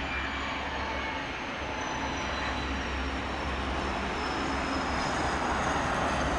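Pilatus PC-24 business jet's twin Williams FJ44 turbofans landing: a steady jet rush with thin high whines that slowly fall in pitch as it passes, growing louder near the end.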